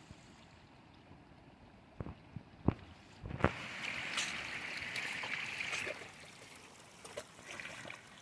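Water splashing and running: a few sharp knocks, then about two and a half seconds of louder splashing, then scattered small splashes and clicks over a low background hiss.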